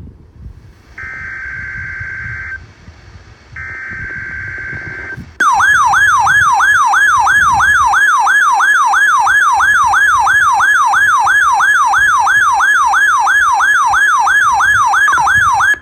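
Two bursts of the EAS/SAME digital header, a buzzing data screech each about a second and a half long, come over a NOAA Weather Radio broadcast. About five seconds in, a weather alert receiver's alarm sets off: a loud electronic siren warbling rapidly, about three sweeps a second, triggered by the weekly test code. It cuts off just before the end.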